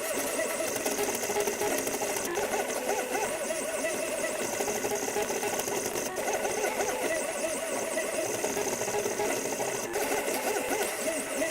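3D printer stepper motors running through a print, a continuous whirring of pitched tones that rise and fall again and again as the print head speeds up and slows down.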